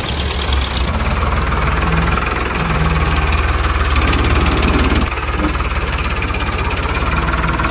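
Diesel tractor engine running steadily with an even, low knocking beat, a recorded engine sound laid over the footage as a sound effect.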